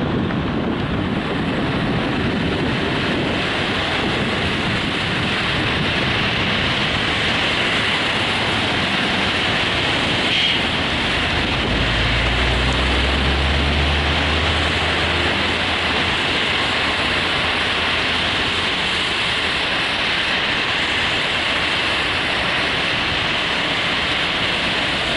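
Steady rushing road and wind noise of a moving car. A low hum swells briefly about halfway through.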